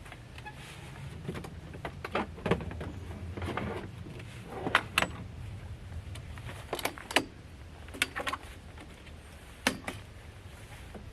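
Irregular clicks and knocks of hard objects being handled, some in quick pairs, over a low steady rumble.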